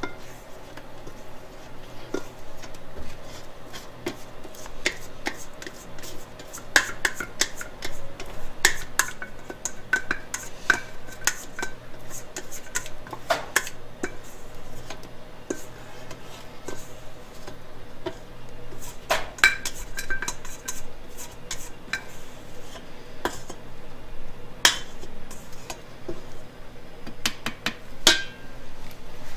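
Stainless-steel mixing bowl clinking and knocking against the rim of a commercial planetary mixer's steel bowl, many irregular metallic clinks, some ringing briefly, over a steady low hum from the mixer.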